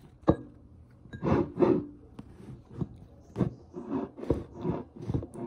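Handling noise from a camera being picked up and repositioned: a sharp knock near the start, then a string of irregular bumps and rubs from fingers on the body of the camera.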